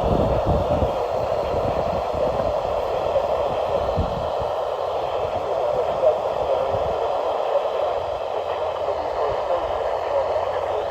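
Steady hiss of static from a weather radio receiver, with a few dull low thumps in the first second and again about four seconds in.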